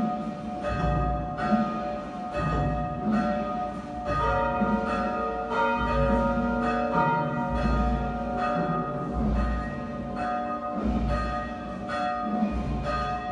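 Church bells tolling the death knell for a departed soul. Several bells of different pitch are struck over and over, roughly once or twice a second, their tones ringing on and overlapping, with a higher bell joining in about four seconds in.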